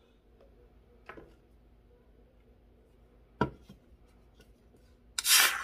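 Faint handling sounds with a small click, then a single sharp knock a little past halfway. Near the end, a can of Nitro Pepsi is cracked open with a loud, short hiss.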